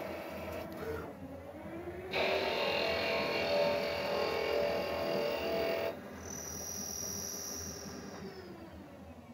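ProtoTRAK RLX CNC lathe running a turning cycle: steady spindle running with a rise in pitch, then a louder stretch of cutting from about two to six seconds. A brief high whine follows, and the tones fall near the end as the spindle winds down.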